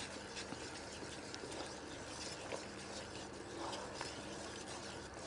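Faint scraping and pattering of a wooden spoon stirring vegetables in a cooking pot, over a low steady hum.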